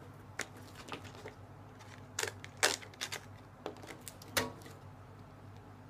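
Cards and packaging being handled and set down on a tabletop: a run of irregular sharp clicks and taps, about a dozen in all.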